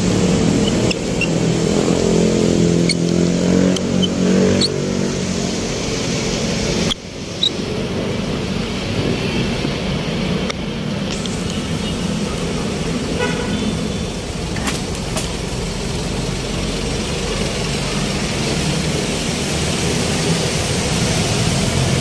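Road traffic: vehicle engines running and passing, with a steady hum, and horn toots.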